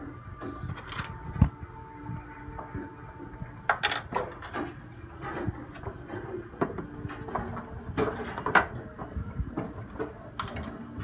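Scattered light clicks and knocks of small plastic dollhouse furniture and dolls being handled and set down on the wooden floors of a dollhouse, with a couple of sharper knocks about four and eight seconds in.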